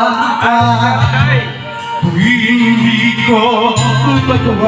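A man singing into a corded microphone over backing music, his voice gliding through long held notes.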